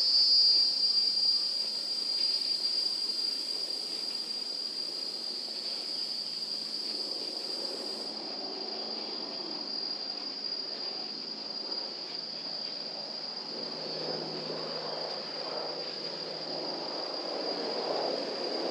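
Insects buzzing in one steady, high-pitched drone, with a rougher, lower rumble growing louder in the last few seconds.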